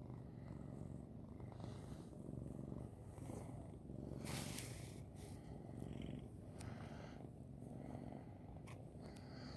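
Domestic cat purring steadily close to the microphone, with a brief rustling noise about four and a half seconds in.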